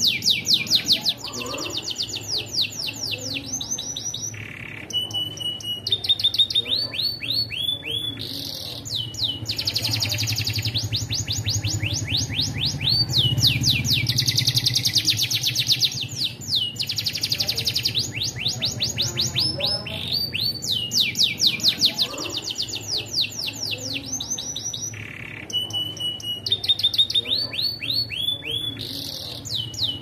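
Domestic canary singing a long, nearly unbroken song: fast trills of repeated falling whistles, one rolling phrase running straight into the next. This is the continuous 'ngelos' style that keepers play to prompt other canaries to sing.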